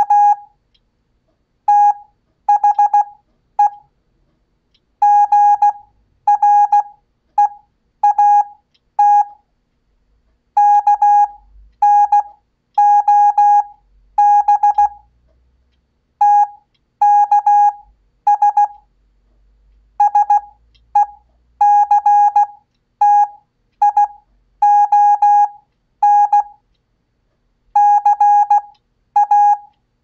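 Morse code sidetone from a Vectronics PMT-228 CW trainer: a single steady beep keyed into dots and dashes, spelling out practice text. The letters are sent at Farnsworth spacing for 15 WPM, with long silent gaps between characters.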